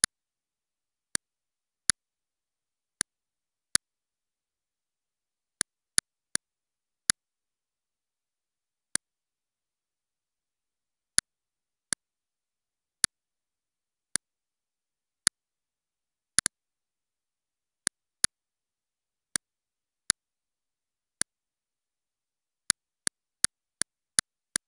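Computer mouse clicks: single sharp clicks at irregular intervals, one every second or so, with a quick run of five or six near the end.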